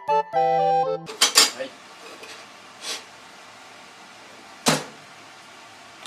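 A short bright musical jingle that ends about a second in, followed by clattering handling noises and a single sharp knock about three quarters of the way through.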